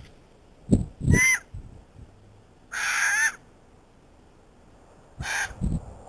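Currawong giving three harsh calls: a short one about a second in, a longer one around three seconds, and a short one near the end. Low thumps come just before the first call and right after the last.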